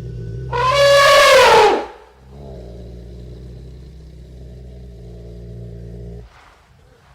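An elephant trumpets once, loud and brassy, for a little over a second, the pitch dropping as it ends. A low steady rumble follows for about four seconds and stops.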